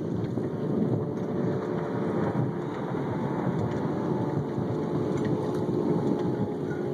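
Wind buffeting the microphone and water washing past the hull of a small sailboat under sail, a steady rushing noise with no distinct events.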